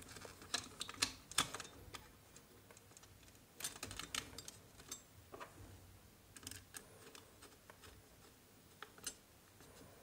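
Faint, scattered small clicks and taps as a screwdriver and a wire end work against the brass terminal screws and plastic plate of an electrical switchboard, fastening a wire into a terminal.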